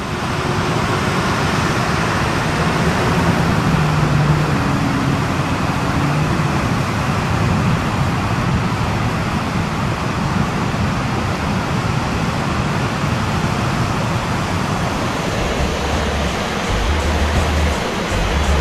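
Steady roar of heavy ocean surf breaking. A deep, pulsing bass beat of music comes in about three-quarters of the way through.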